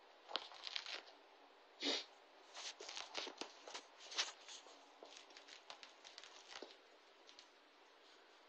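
Irregular small clicks, crackles and rustles of handling noise from the phone being moved about. The sharpest clicks come about two seconds and four seconds in, and the sounds die away near the end.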